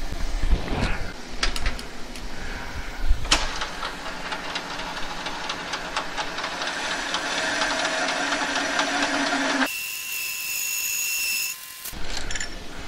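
Metal lathe spinning up and running, a cutting tool turning a groove for a seal mating ring in a 1957 GMC water pump's cast impeller, after a few seconds of clicks from setting the tool. About ten seconds in the sound switches abruptly to a thin, high steady whine for about two seconds.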